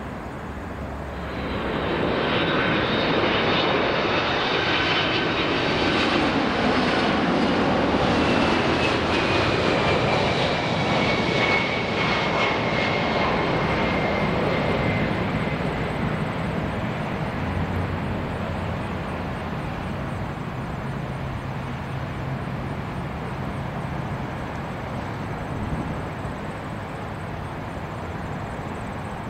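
Air Canada Rouge Boeing 767-300ER jet engines on final approach. The noise swells about two seconds in, and a high whine falls in pitch as the jet passes. It then settles to a steadier, lower rumble as the aircraft touches down and slows on the runway.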